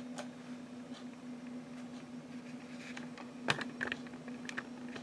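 A few sharp computer mouse clicks, the loudest about three and a half seconds in, over a steady low computer hum.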